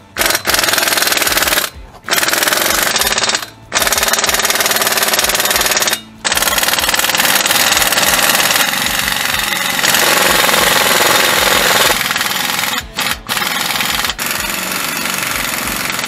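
Air-powered impact wrench hammering on the Tacoma's front wheel and hub fasteners, in long runs with a few short breaks between them.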